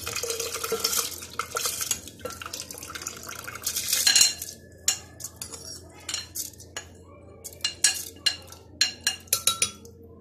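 Soaked rice and its water poured from a glass bowl into a glass blender jug, splashing for about four seconds. Then a run of sharp clinks as the glass bowl knocks against the jug while the last wet grains are shaken out.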